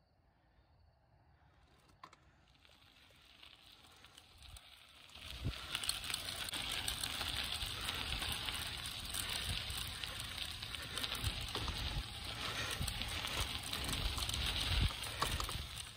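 Wind buffeting the microphone: a crackling hiss with a gusty low rumble that builds and is loud from about five seconds in.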